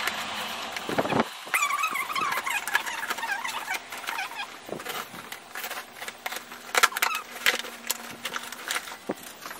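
Scissors scraping and snipping at the packing tape on a cardboard box, with clicks and cardboard rustling throughout. About a second and a half in, a wavering squeal lasts a few seconds, then the flaps are pulled open.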